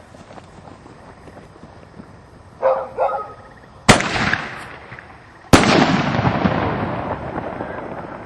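Two loud consumer firework bangs, aerial shells going off about a second and a half apart, each followed by a long fading echo. Just before them there is a short pitched cry.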